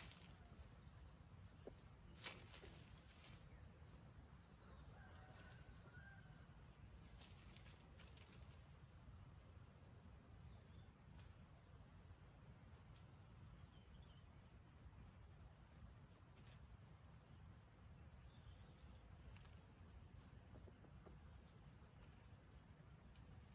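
Near silence: faint woodland ambience with a few soft rustles in dry leaves, a faint steady high insect tone and a few faint distant bird chirps.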